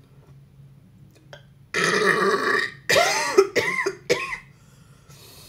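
A woman burps loudly, a long one about two seconds in and another right after, followed by short throat sounds as the burp catches in her throat.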